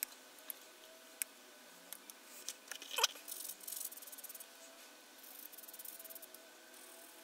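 Faint handling noise of small hobby parts and tools: a clear plastic parts bag crinkling lightly and a few small clicks, with a sharper click about three seconds in.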